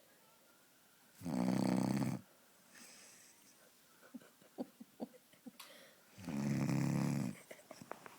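Snoring: two loud snores, each about a second long and about five seconds apart, with faint short clicks between them.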